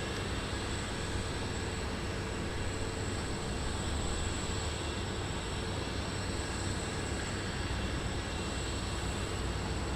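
Steady jet aircraft engine noise at an airport, with a high whine held throughout.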